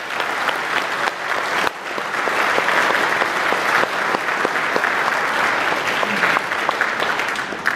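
Audience applauding: a large crowd clapping steadily, with a brief break about two seconds in.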